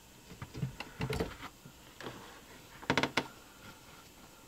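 Handling noises from a car battery's disconnected terminal clamp and cable being set down on a microfiber cloth over the battery: a few light knocks about a second in and a quick run of sharp clicks about three seconds in.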